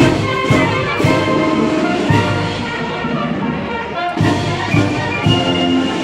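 Marching wind band playing while on the march: clarinets, saxophones and brass over a sousaphone bass, with a steady beat of drum and cymbal strokes.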